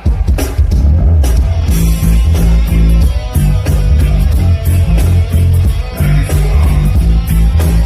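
Live reggae band music with a heavy, pulsing bass line and steady drums, the full band coming in right at the start.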